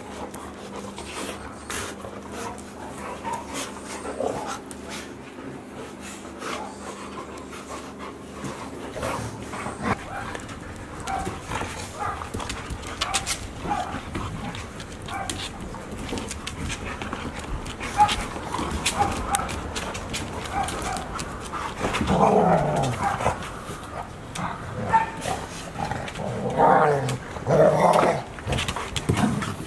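Golden retrievers play-wrestling, with short barks, play vocalisations and panting, and scattered clicks. The vocal sounds get louder and busier after about twenty seconds.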